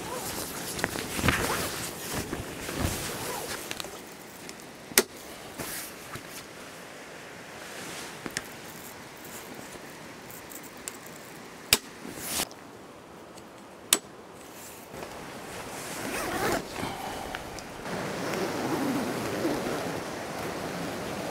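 Heavy canvas tent wall rustling and flapping as it is handled and hung from a vehicle awning, with three or four sharp clicks in the middle stretch, and a zipper on the canvas being worked near the end.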